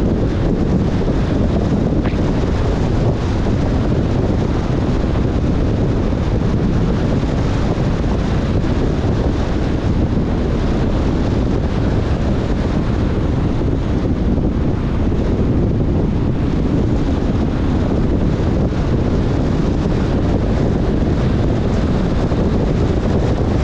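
Steady low rumble of a car driving on a rain-soaked road, with wind buffeting the camera's microphone.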